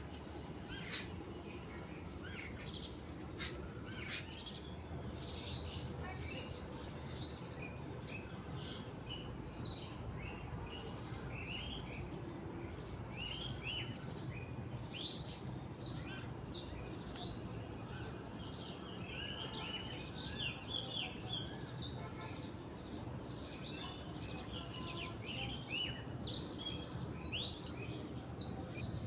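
Several small birds chirping and twittering, short quick notes that grow busier about halfway through, over a steady low background hum.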